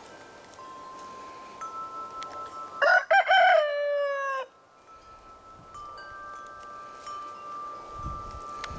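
A rooster crows once, about three seconds in, its last note held and dropping in pitch, over wind chimes ringing with long, overlapping tones.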